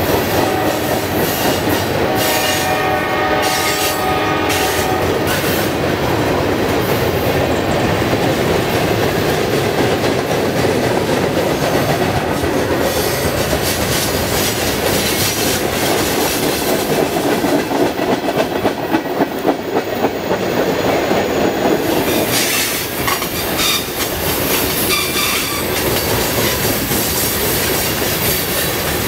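Freight cars of a CSX mixed manifest train rolling past on a curve: a steady rumble and clatter of steel wheels on rail. There is a brief wheel squeal a few seconds in, and a stretch of rhythmic clickety-clack from wheels over rail joints past the middle.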